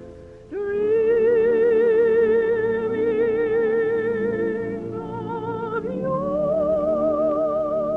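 A soprano voice holding long notes with a wide vibrato over soft orchestral accompaniment, stepping up to a higher held note about six seconds in.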